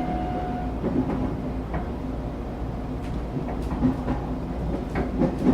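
Interior of a moving passenger train: a steady low rumble of running, with a steady tone that fades out within the first second and a few light scattered knocks and rattles.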